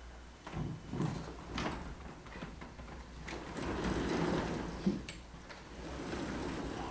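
Vertical sliding chalkboard panels being moved on their tracks: a few knocks, then a long rumbling slide loudest about four seconds in.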